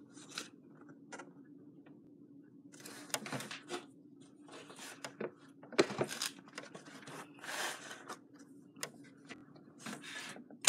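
Pages of a LEGO instruction booklet being turned and handled: scattered soft paper rustles and a few small taps at irregular moments, over a faint steady hum.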